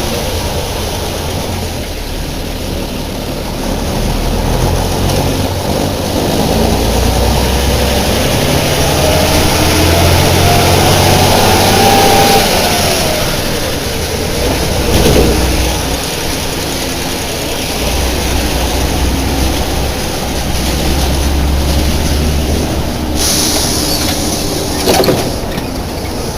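Deutz BF6L 913 C air-cooled turbo-intercooled six-cylinder diesel of a 1997 Deutz El Detalle OA 101 bus running under way. The heavy rumble swells and eases twice, with a whine that climbs and falls away around the middle. A couple of sharp knocks come near the end.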